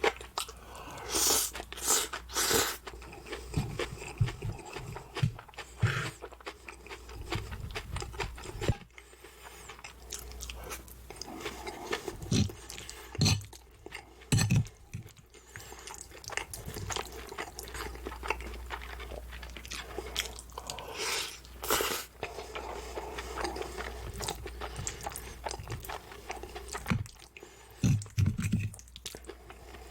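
A person eating close to the microphone: chewing with crisp crunching bites, a loud crunch every few seconds.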